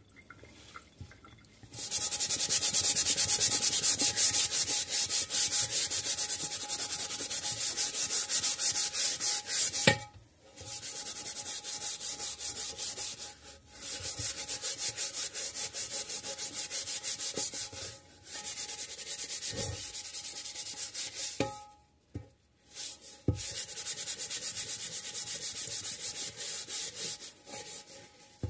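A Greenway microfibre dish cloth with cleaning paste scrubs the rim and side of a frying pan in quick back-and-forth strokes. The scratchy rubbing breaks off for a moment several times.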